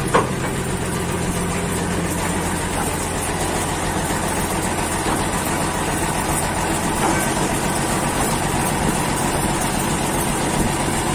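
Shipyard slipway winch engine idling steadily, an even low hum.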